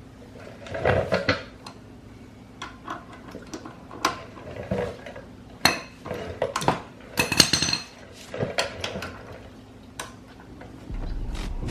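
Irregular metallic clicks and clinks of hand tools working the front brake caliper mounting bolts on a 2006 Suzuki GSX-R 750, with a short run of rapid clicks a little past the middle.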